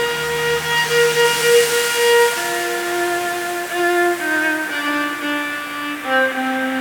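Music of long held notes on bowed strings; about midway the lower line steps down in pitch and settles on a low sustained note near the end.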